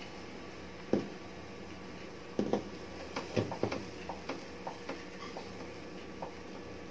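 A ladle knocking and tapping against a non-stick dosa pan as batter is poured and spread in circles: one knock about a second in, then a string of irregular light taps and clicks over the next few seconds.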